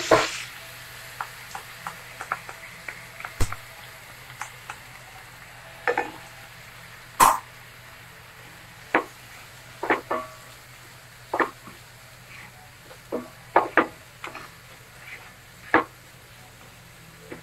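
Vegetables stir-frying in a nonstick frying pan with a faint steady sizzle, and a black plastic spoon stirring and knocking against the pan every second or two. Soy sauce hisses as it is poured into the hot pan at the very start.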